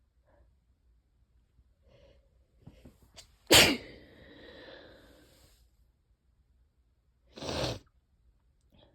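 A person gives one loud, wet allergy sneeze about three and a half seconds in, after a few short catching breaths, and it trails off over about two seconds. A shorter breathy burst follows near the end.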